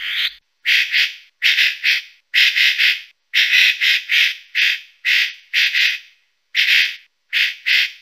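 Parrot squawking: a rapid series of short, harsh calls, about two a second and often in quick pairs or threes, with a brief pause about six seconds in.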